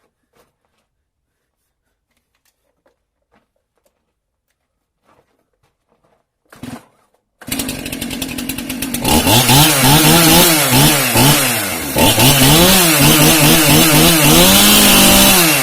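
Stihl MS271 two-stroke chainsaw being started: a pull on the starter cord, then the engine catches about seven seconds in and idles briefly. It is then revved repeatedly, its pitch swinging up and down with each blip of the throttle, and it starts winding down at the very end.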